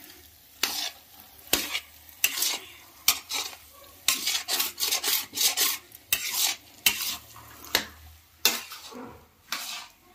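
A metal spatula scrapes and turns thick mung dal paste frying in ghee in a large iron kadhai, with ghee sizzling. The strokes come about once a second and quicken to several a second in the middle. This is the early stage of roasting, when the paste still sticks to the pan and has to be turned quickly.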